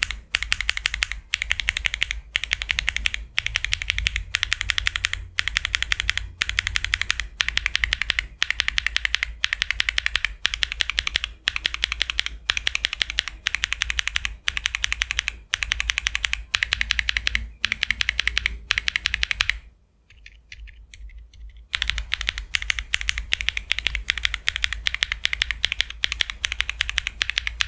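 Fast typing on a mechanical keyboard fitted with Akko switches, a dense clatter of keystrokes in runs with short pauses about once a second. It drops to a much quieter patter for about two seconds near the end, then picks back up.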